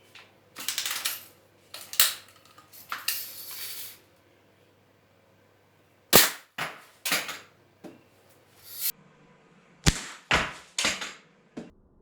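Daisy Red Ryder lever-action spring-air BB gun being cocked and fired repeatedly: a series of sharp snaps and clacks, with a pause of about two seconds partway through.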